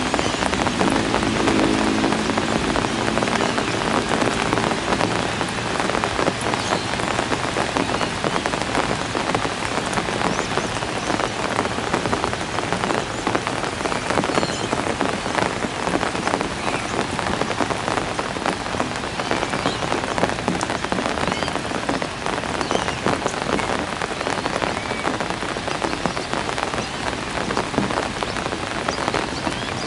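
Heavy rain falling steadily, with many individual drops striking. A low steady tone sounds for a few seconds near the start.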